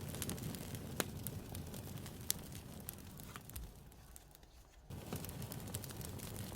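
Campfire crackling: a steady low rush of burning wood with sharp pops and snaps. It thins out and quietens a little past the middle, then comes back suddenly.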